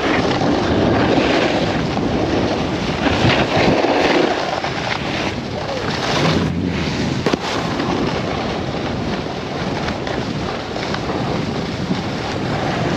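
Wind rushing over a helmet-mounted GoPro's microphone as a snowboard slides and scrapes over hard-packed snow at speed.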